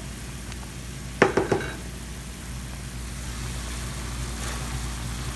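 Food sizzling in a pan on the stove with a steady low hiss. A little over a second in comes a quick run of metal clinks as a utensil knocks against the pan.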